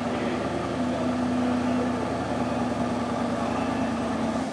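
Car assembly plant ambience: a steady machinery hum with a low droning tone over a broad mechanical wash.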